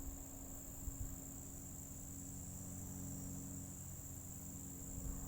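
Steady, high-pitched chorus of insects trilling without a break, with a faint low steady hum underneath.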